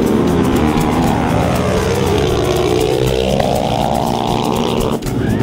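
Two four-wheeler ATV engines revving hard as the quads launch and race down a dirt drag strip, the engine pitch dipping and then climbing again. The sound breaks off abruptly near the end.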